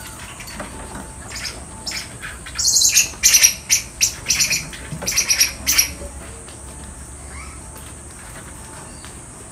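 Common squirrel monkeys giving a rapid string of short, high-pitched chirping calls for about three seconds, starting about two and a half seconds in.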